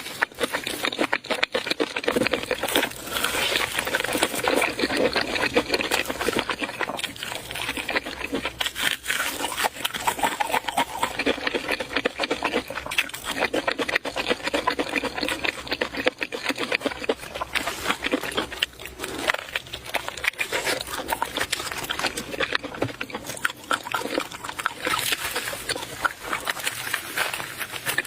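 A person eating close to the microphone: continuous wet chewing and smacking.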